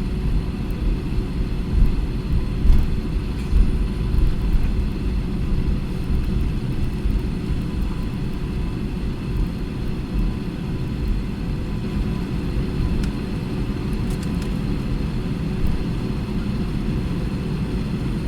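Airbus A320 cabin noise on the ground before takeoff: a steady low rumble of the engines at idle, with faint steady whines over it, heard from inside the cabin.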